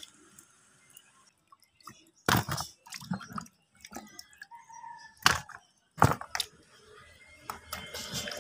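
Peeled hog plums being washed by hand in a plastic basin of water: scattered splashes and wet knocks as the fruit is rubbed and lifted out. The sharpest come about two, five and six seconds in.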